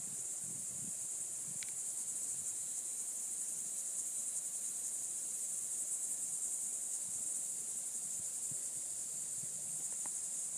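A steady, high-pitched insect chorus that holds level without a break, with a faint tick about one and a half seconds in and another near the end.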